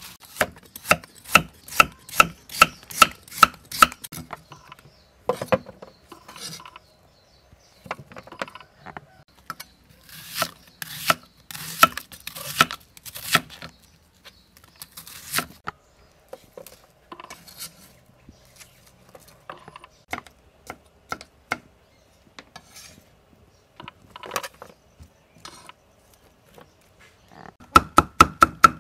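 Kitchen knife striking a wooden chopping board: a quick, regular run of chops at first, then slower, scattered cuts as a white onion is sliced into rings. Near the end a cleaver starts fast, rhythmic chopping, mincing garlic.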